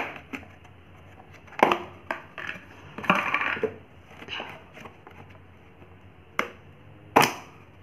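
Empty hard-plastic dishwash-bar tubs and their lids knocking and clacking as they are handled and set down on a tile floor: a string of short sharp clacks a second or so apart, with a small cluster around three seconds in and the loudest clack near the end.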